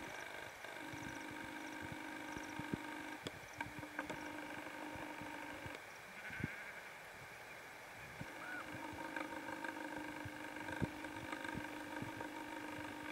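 Common snipe drumming: a bleating, throbbing hum made by the outer tail feathers in the bird's display dives, in three bouts of a few seconds each with short gaps. Faint high bird chips can be heard in the first few seconds.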